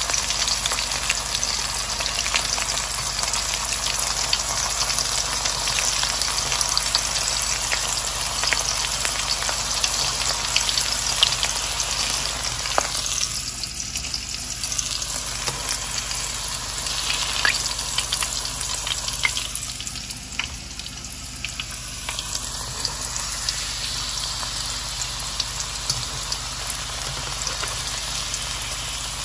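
Flour-coated pieces of meat frying in a pan of hot oil: a steady sizzle dotted with small pops and crackles. The sizzle dies down briefly twice.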